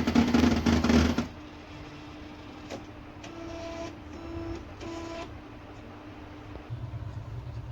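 Canon imageCLASS MF4820D laser printer running with an abnormal mechanical noise, the printer's sound fault. It is loud and noisy for about the first second, then settles into a quieter steady hum with a few short whines in the middle.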